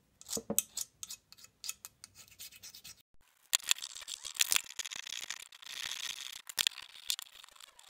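A small flat blade scraping thick paint off a coaster-brake arm in short, scratchy strokes with sharp little clicks. The paint is flaking off easily. The scraping pauses briefly about three seconds in, then carries on denser.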